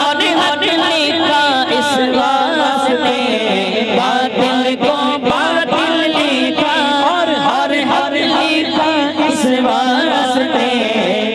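Several voices chanting a manqabat melody together, their lines rising and falling in long drawn-out notes without clear words.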